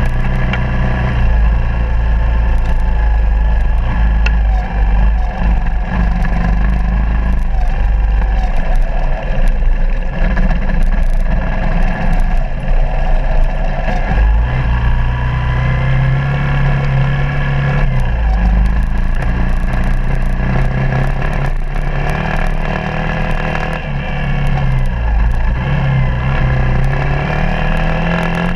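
Suzuki DR200's single-cylinder four-stroke engine running on a rough dirt trail, its pitch rising and falling repeatedly as the throttle is worked on and off. Occasional knocks and clatter come through from the bike over the rough ground.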